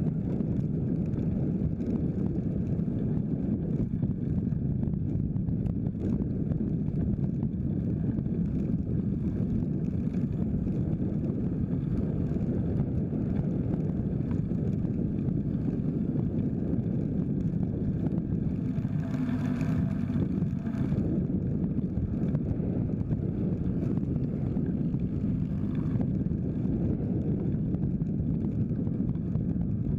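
Steady wind buffeting the microphone of a camera on a moving bicycle. A motor vehicle passes about two-thirds of the way through, rising above the wind and fading.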